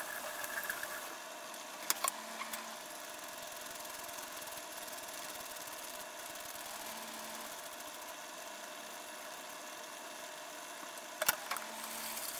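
Steady whirring hum of a kitchen appliance fan, with a few light clicks about two seconds in and again near the end.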